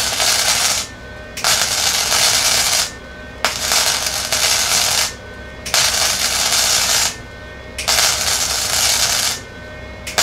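Flux-core wire-feed welder (Lincoln Electric 140 running 0.035 flux-core wire) laying stitch welds that join thin sheet metal to 1/8-inch tube steel: a loud, steady crackle of the arc in runs of about one and a half seconds, stopping and restarting about five times.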